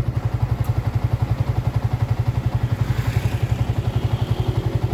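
Motorcycle engine idling with an even, steady low throb of about ten to twelve pulses a second.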